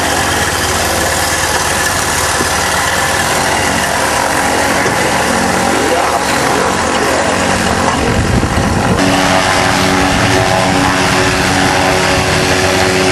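Xenon autogyro's engine and pusher propeller running steadily as the floatplane taxis on the water, with splashing from the floats. The sound changes abruptly about nine seconds in.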